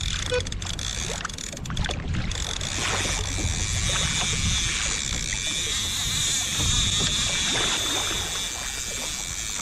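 Wind on the microphone and water moving against a fishing kayak, a steady rushing noise, with a steady high hiss in the middle.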